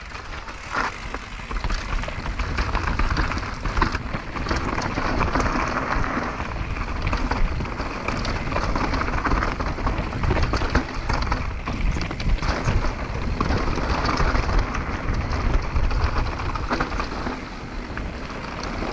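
Downhill mountain bike rolling fast down a rocky dirt trail: knobby tyres crunching over gravel and stones, with constant clatter and knocks from the bike over the bumps. Wind rumbles on the helmet-camera microphone underneath.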